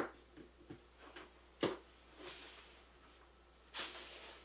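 Faint handling noise from a handheld wireless oscilloscope probe and its cable: a few light clicks and taps, one sharper knock a little over a second and a half in, and soft rustling near the end.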